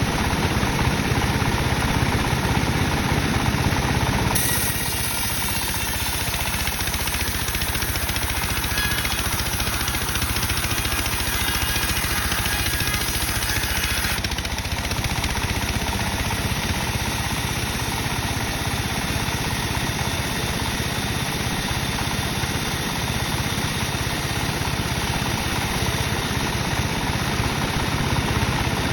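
Sawmill running with a steady engine-like drone. From about four seconds in until about fourteen, a higher whine and hiss join it as the saw cuts through dry teak, then the drone carries on alone.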